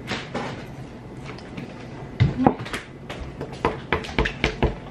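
Eating at a table: scattered clicks of forks and spoons against bowls, with a few low knocks on the table around the middle and near the end. A brief child's vocal sound comes about halfway through.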